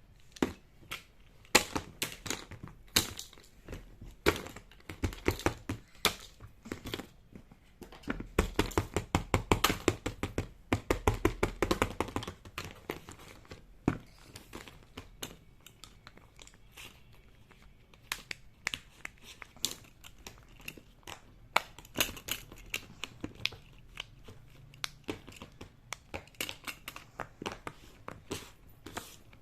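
Hands handling fidget toys: irregular plastic clicks and crinkling, with a dense, fast run of clicks from about eight to twelve seconds in.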